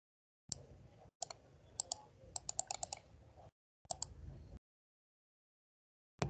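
Sharp clicks from someone working at a computer, with a quick run of them near the middle. Underneath is a faint low hum that cuts in and out abruptly.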